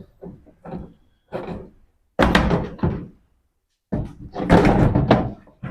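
A series of knocks and thumps from the front-load washing machine's cabinet being handled, the loudest and longest near the end.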